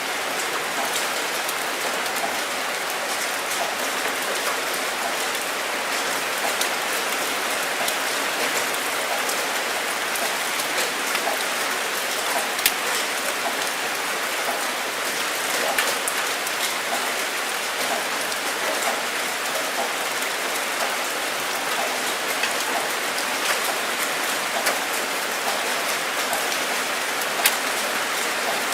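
Steady rain falling, an even hiss with many small drop impacts and an occasional sharper, louder drop.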